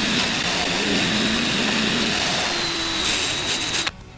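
Cordless rotary tool running steadily, grinding corrosion buildup and rust off the tailgate's hinge mount, with a faint high motor whine. It stops abruptly just before the end.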